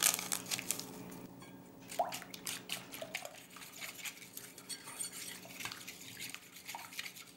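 A wire whisk beating baking powder into a thin egg, milk and oil mixture in a glass bowl: quick, quiet wet clicks and small splashes of the liquid.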